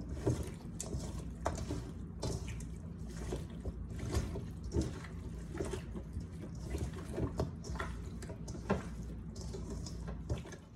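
Raw chicken pieces being mixed by hand with seasonings and soy sauce, making irregular wet squelches and clicks over a steady low hum.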